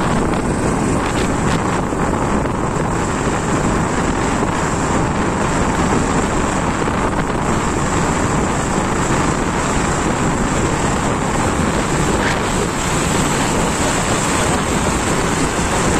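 Steady wind rushing over the microphone of a motorcycle moving at speed, with the bike's running noise underneath.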